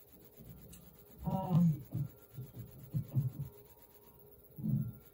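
A woman murmuring indistinctly to herself in a few short, low bursts while she reads, with paper rubbing as she handles the pages of a folder.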